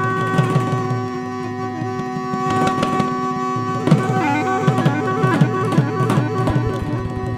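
A gourd pipe plays a held drone with a wavering reed melody over it, accompanied by hand strokes on a two-headed barrel drum. The drumming thins out for a moment about a second in, then picks back up.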